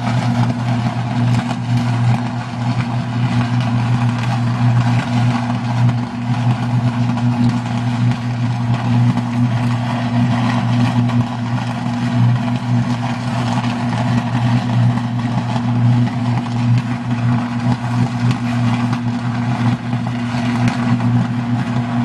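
Sustained high-voltage short-circuit arc at a substation transformer: a loud, steady electrical buzz at twice the 60 Hz mains frequency, with crackling over it.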